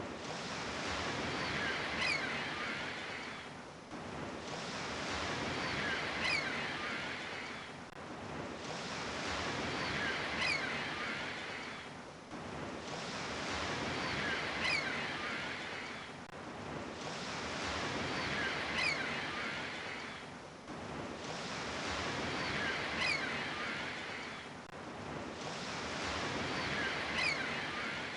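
Sea waves washing in, swelling and ebbing in identical cycles about every four seconds, like a looped recording. Each swell carries a faint falling whistle.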